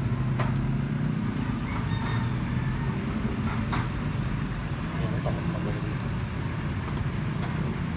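Steady low engine rumble of road traffic, with a few faint clicks.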